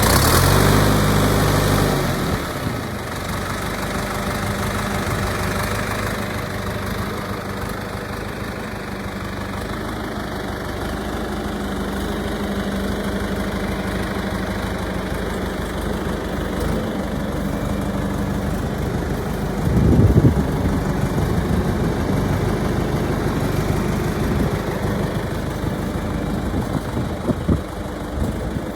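John Deere 310-A backhoe engine running: louder for the first couple of seconds, then settling to a steady idle, with a brief surge about twenty seconds in and a few short knocks near the end.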